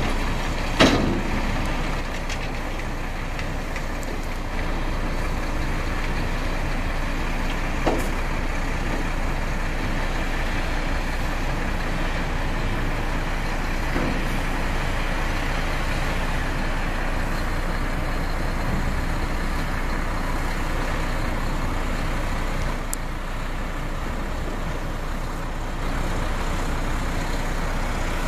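Heavy diesel engines of a tracked excavator and dump truck running steadily, with a few sharp knocks.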